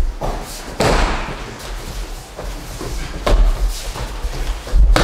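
Thuds of bare feet and bodies on the dojo's training mats as two aikido partners work through a throw, with a few sharp knocks about a second in, in the middle, and a loudest one near the end.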